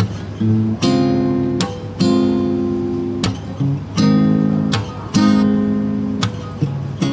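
Acoustic guitar strumming chords with no singing, a fresh strum roughly every second, each chord left to ring.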